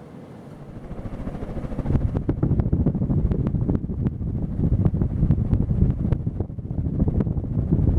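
Fan Company of America Westwind ceiling fan running, its airflow buffeting the microphone. Steady at first, then swelling over about the first two seconds into loud, gusty low rumbling with frequent crackles.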